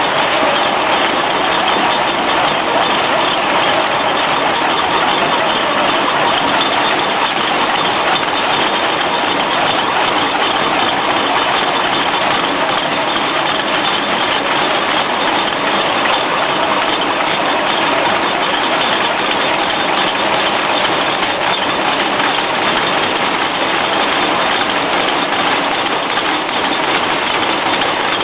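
Excavator-mounted hydraulic breaker hammering into brick masonry: a loud, rapid, unbroken pounding, with the excavator's engine running beneath it.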